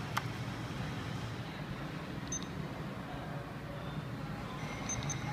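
Verifone VX520 card terminal giving short high beeps as its keys are pressed: one a couple of seconds in and two in quick succession near the end, over a steady low hum.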